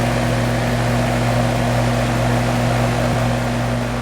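R-410A air conditioner's outdoor condensing unit running: a steady low compressor hum under the even rush of the condenser fan, with the system under load for a superheat check.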